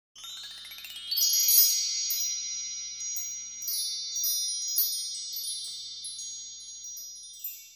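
Shimmering chime intro sting: a quick rising run of high chime notes, then bright tones ringing with scattered tinkles that slowly fade away.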